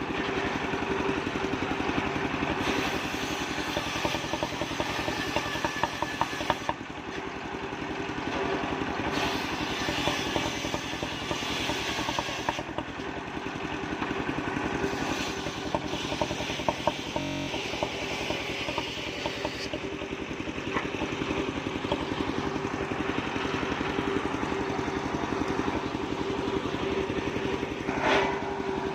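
Small combustion engine running steadily to drive a homemade portable wood circular saw, with stretches of stronger hiss and a brief louder sound near the end.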